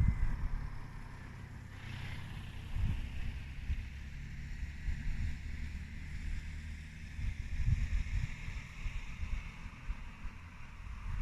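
Wind buffeting the microphone outdoors: an uneven, gusty low rumble that rises in bursts about 3 s and 8 s in, over a faint steady hiss.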